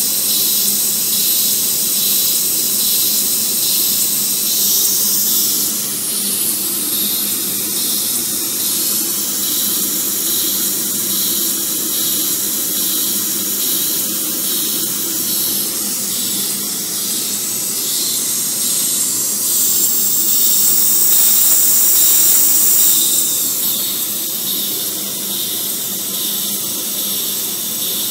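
Vacuum windshield-wiper motor converted into a small stationary steam engine, running with a loud, steady hiss of its working steam or air. The hiss swells about twenty seconds in and eases off again around twenty-three seconds.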